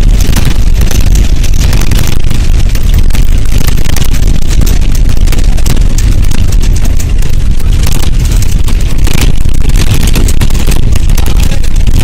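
Loud, steady running noise of a moving bus heard from inside: engine and road rumble with a constant crackling rush over the top.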